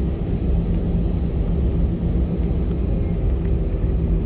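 Steady low rumble and hum inside an Airbus A320's passenger cabin, from the aircraft's engines and air systems, before the takeoff roll.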